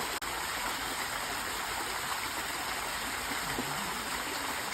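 Steady rushing of a flowing stream, with a momentary drop in level just after the start.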